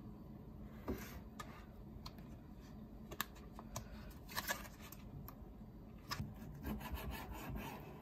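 Plastic bacon packet being handled and opened: soft crinkling and rustling with scattered light clicks and taps, busiest about halfway through and again near the end.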